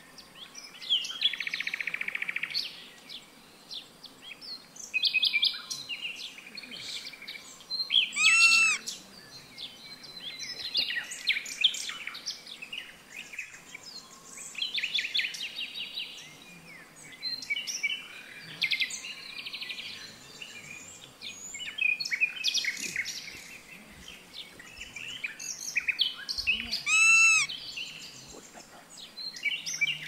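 Forest birds calling: a mix of chirps, trills and whistled notes from several birds. Two louder arched, ringing calls stand out, one about eight seconds in and one near the end.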